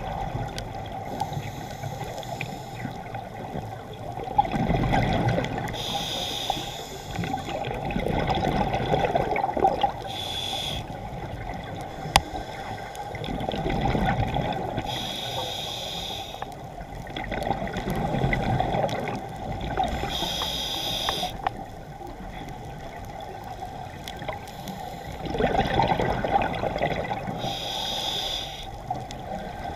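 Scuba diver breathing through a regulator underwater: a short hiss on each inhale alternating with a longer, louder gush of bubbles on each exhale, about every five seconds.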